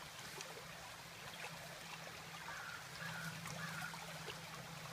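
Faint, steady trickling of running water, like a small stream, over a low steady hum.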